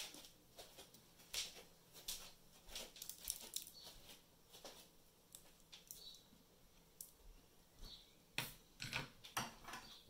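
Irregular light clicks and taps from small tools and parts being handled on a workbench, with a cluster of sharper clicks near the end.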